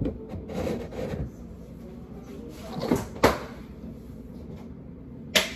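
Kitchen clatter: handling and shuffling noise, then two sharp knocks close together about three seconds in and another near the end, as of cupboard doors, drawers or items set down on a counter.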